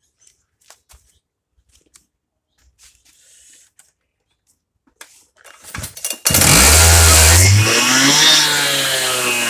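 Husqvarna K960 two-stroke petrol power cutter being pull-started. After faint handling clicks and a few short starter pulls, the engine catches about six seconds in, runs at high revs for about a second, then drops back and runs steadily.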